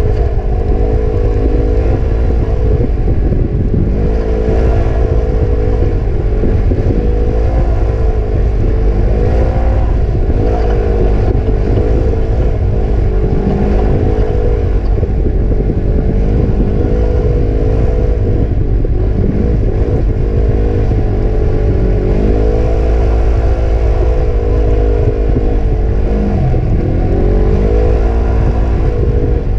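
Side-by-side UTV engine running under way, its pitch rising and falling again and again as the throttle changes, over heavy wind buffeting on the microphone.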